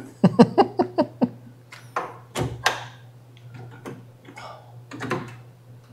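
Hinged taillight of a 1955 Cadillac, which hides the fuel filler, knocking and clicking as it is pushed down and latched: two sharp clunks a moment apart about two and a half seconds in, and another near the end. A short burst of laughter comes first.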